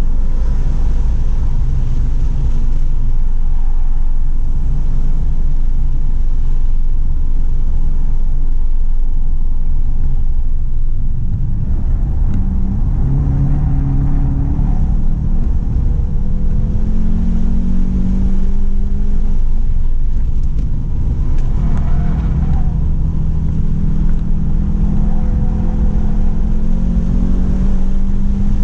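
A 2017 Volkswagen GTI's Stage 2–tuned 2.0 L turbocharged four-cylinder engine driven hard on a race track, over a heavy rumble of road and wind noise. The engine pitch climbs in long pulls under acceleration, twice in the second half.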